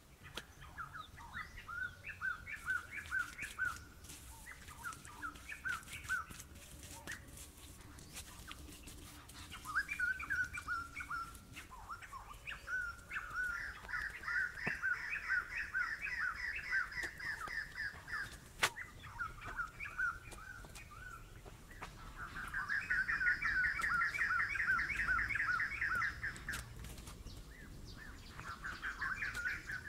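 Bird song: runs of quick repeated chirps lasting a few seconds each, the loudest about halfway through and again near the end, with a fainter high trill behind two of the runs. A single sharp click about two-thirds of the way through.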